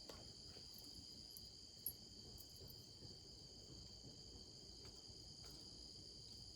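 Faint steady chorus of insects such as crickets, held at a constant high pitch, with one brief click about two seconds in.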